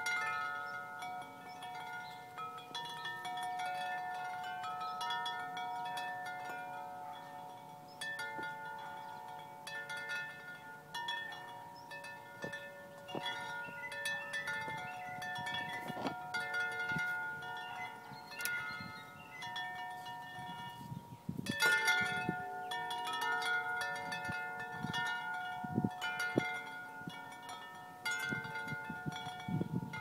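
Large 50-inch tubular wind chime ringing as its long tubes swing and strike, deep sustained tones overlapping and lingering between strikes. A flurry of louder strikes comes a little past two-thirds of the way through.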